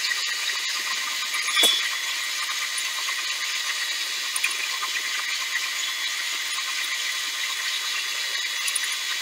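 Harbor Freight mini lathe running while a number 11 twist drill in the tailstock chuck is hand-fed into the spinning workpiece: a steady high motor and gear whine with a hiss. A single knock about one and a half seconds in.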